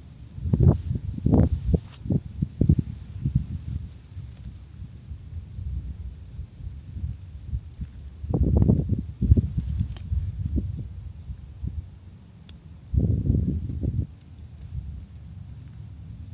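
Insects chirping in a steady, evenly pulsing high trill. It is broken by bouts of low rumbling thumps, about a second in, around eight seconds and again near thirteen seconds, which are louder than the chirping.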